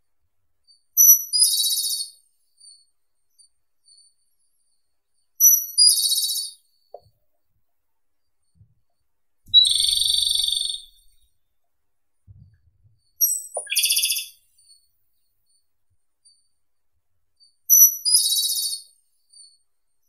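Japanese robin singing: five short, very high song phrases about four seconds apart, most opening with a thin high note and running into a rapid trill.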